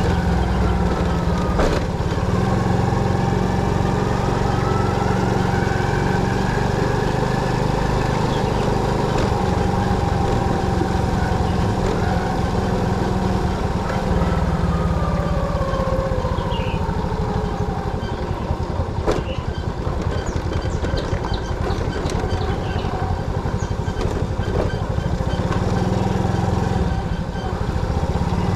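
Motorcycle running while ridden, a steady engine and road noise with its pitch slowly rising and falling, and a few sharp clicks.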